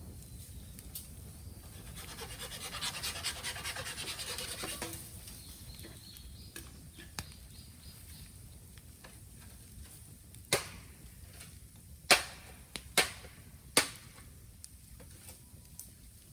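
Raw green bamboo burning in a bonfire: a crackling hiss swells for a few seconds with a faint thin whistle after it, then four sharp pops in the second half.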